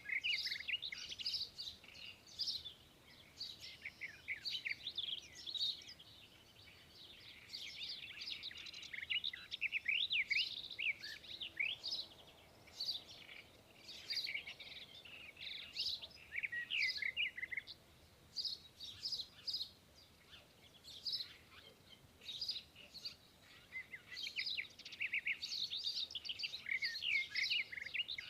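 A flock of small birds chirping and twittering, many quick high chirps overlapping in busy bursts with short lulls between.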